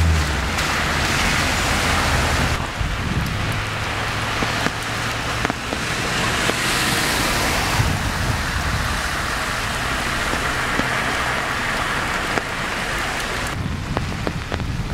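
Heavy rain falling on flooded pavement, a steady hiss; about seven seconds in, a car drives through the deep floodwater and throws up a spray.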